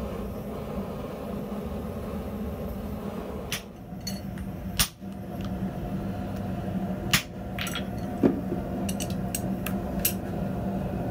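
Hand hammer striking a small hot steel block held in tongs on a steel swage block: a handful of sharp metallic blows, the loudest about five seconds in, then a quick run of lighter strikes near the end. A steady hum runs underneath.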